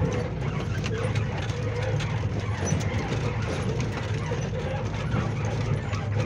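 Cab noise of a vehicle driving on a rough road: a steady low engine drone with irregular clicking and rattling of loose fittings.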